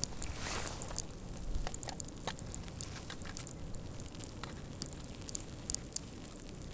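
Snow pellets pattering in irregular small ticks on a jacket and on the camera, over a low wind rumble on the microphone.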